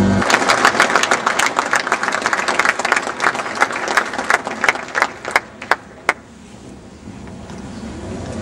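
Audience applauding, the clapping thinning out to a few last separate claps about six seconds in.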